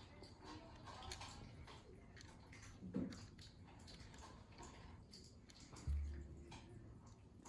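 Faint small clicks and taps of plastic and metal parts of a turn signal switch being handled and fitted back in place, with a soft knock about three seconds in and a deeper thump near six seconds.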